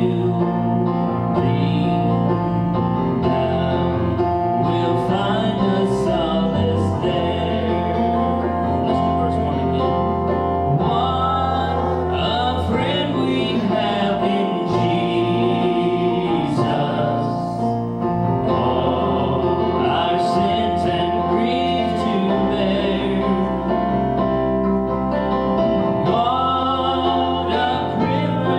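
Gospel worship song: voices singing over an instrumental backing of held bass notes and chords.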